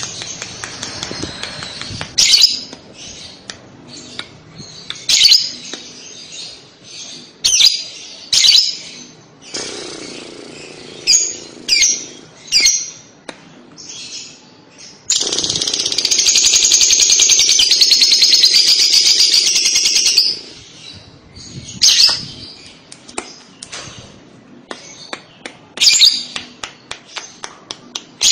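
Lovebird calling: sharp, shrill single chirps, and about halfway one long, very rapid chatter lasting about five seconds. That chatter is the 'kekek' or ngekek song that breeders use to get young lovebirds to answer.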